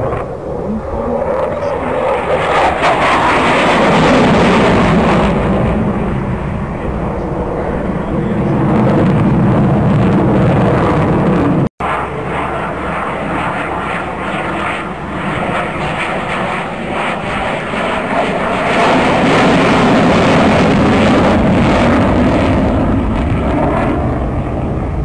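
Military jet fighter's engine noise in a display pass, swelling to a loud peak a few seconds in and easing off. After an abrupt cut a little before halfway, it swells loud again near the end.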